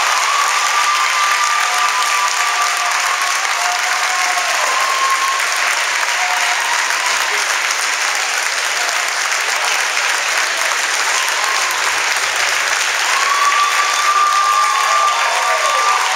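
A crowd applauding steadily, with a few drawn-out cheers rising above the clapping near the start and again near the end.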